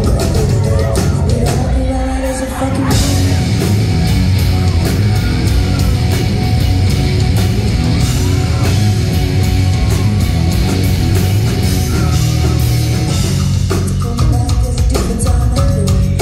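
A live rock band plays with electric guitars, bass guitar, drums and singing, heard from the audience in a concert hall. About three seconds in the band swells into a louder, fuller section with crashing cymbals, which eases off again near the end.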